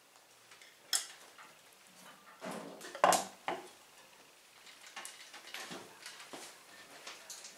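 Sparse metallic clinks, taps and light scrapes from the ensemble's instruments. A cluster of clinks rings briefly about three seconds in and is the loudest, with quieter scattered taps before and after.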